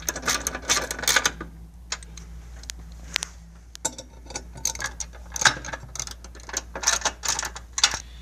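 Ratchet wrench with a half-inch socket tightening bolts: runs of rapid pawl clicks as the handle is swung back and forth, with short pauses between runs.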